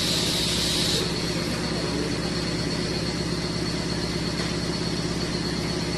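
Band knife sliding cutting machine running with no material in it: a steady motor hum with a high hiss on top that drops away about a second in.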